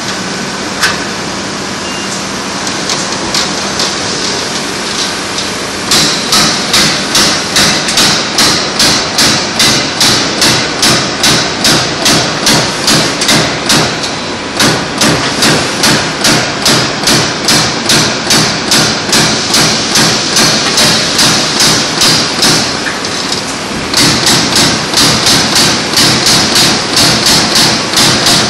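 A CNC turret punch press punching sheet metal. It starts with several seconds of steady machine hum and a single knock, then gives a rapid, even run of punch strokes, about three a second, with a couple of short breaks.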